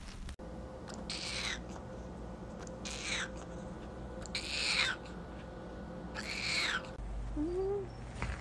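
A cat making four short, high-pitched squeaky meows, each falling in pitch, spaced a little under two seconds apart.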